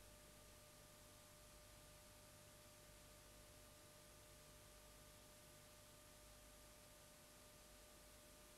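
Near silence: a faint steady hiss with a thin, steady high tone.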